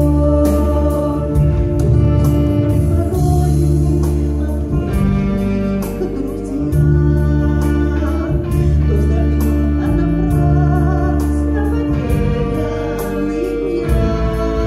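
Two women singing a Christian song as a duet into microphones, over an accompaniment of sustained organ-like chords and a bass line that moves every second or two.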